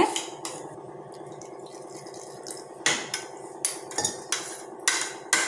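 A steel spoon knocking and scraping against a stainless steel mixer-grinder jar of thick ground greens. There are a handful of sharp clinks, most of them in the second half.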